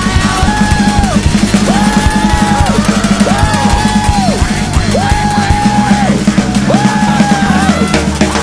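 Rock song with a driving drum kit beat and a voice singing held notes in short repeated phrases.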